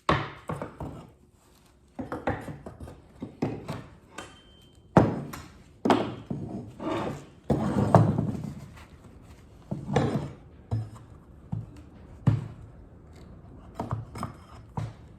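Irregular knocks and thunks on a thin pine birdhouse as a cracked board is worked loose with a tool, a dozen or so blows, the heaviest about five and eight seconds in.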